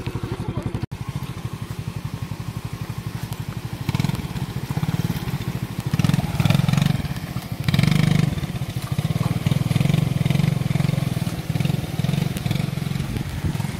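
Motorbike engine running at low speed with a steady pulsing beat, swelling louder a few times as the throttle or load changes, while the bike rides a steep, rough dirt track. A brief dropout about a second in.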